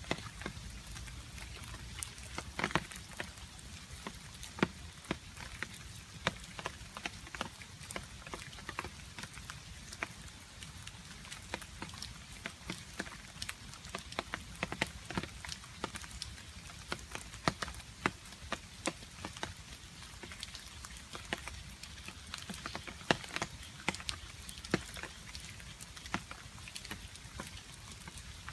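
Steady rain with water drops falling and hitting a surface in irregular sharp plinks, several a second, some much louder than the rest.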